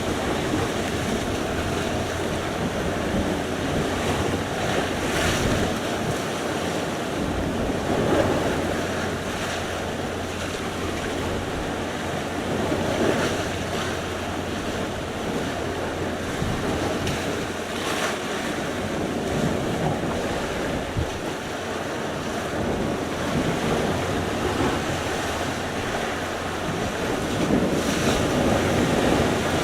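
Sea surf: waves breaking and washing onto the shore in a continuous rush, with a sharper crash every few seconds. Wind buffets the microphone throughout.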